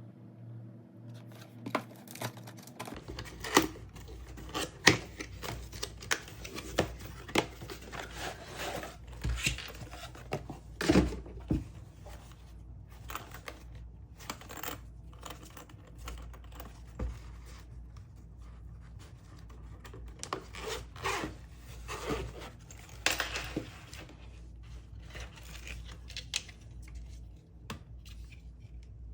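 Packaging being opened and handled by hand: irregular tearing and rustling with scattered sharp clicks and knocks of plastic and cardboard.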